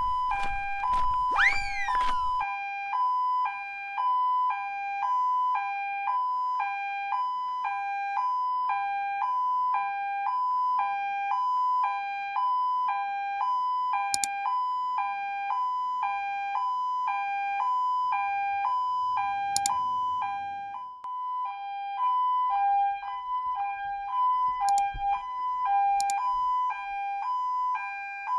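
Electronic two-tone 'nee-naw' police siren from a toy police van, alternating evenly between two pitches about one and a half times a second. A few sharp clicks from handling the plastic toys sound over it. At the start a brief rising-and-falling tone and some clicks die away.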